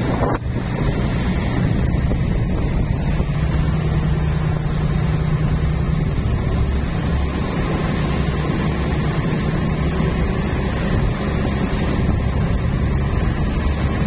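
Boat engines running with a steady low hum, with wind buffeting the microphone and water washing.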